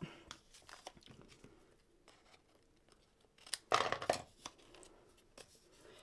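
Quiet handling of a cardstock paper gift bag on a craft mat, with a brief burst of paper-and-tape rustling about three and a half seconds in.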